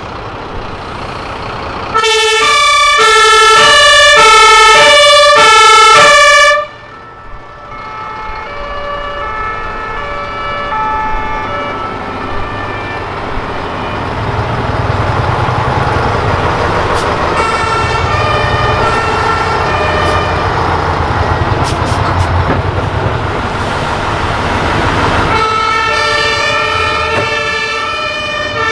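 Two-tone fire engine sirens (the German Martinshorn), each switching back and forth between two pitches, as fire trucks drive past in procession. One very close, loud siren sounds for about five seconds and cuts off suddenly; fainter sirens of vehicles further back carry on, with the low rumble of a heavy truck engine in the middle, and another siren comes in loud again near the end.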